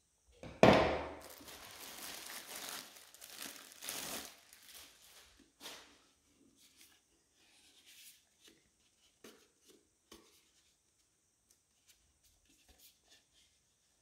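Clear plastic wrapping crinkling loudly as it is pulled off a handheld vacuum cleaner, loudest at first, for about four seconds. After that come scattered faint clicks and taps of handling.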